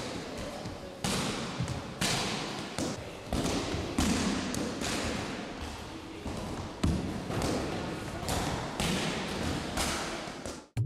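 Punches and kicks smacking into a focus mitt and a padded arm shield: about a dozen sharp strikes at an uneven pace, each echoing briefly in a gym hall.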